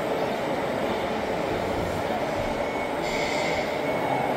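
Radio-controlled scale Komatsu WA470 wheel loader working as it scoops and lifts a bucket of wood chips: a steady mechanical running noise, with a thin high whine and a short hiss joining about three seconds in as the bucket rises.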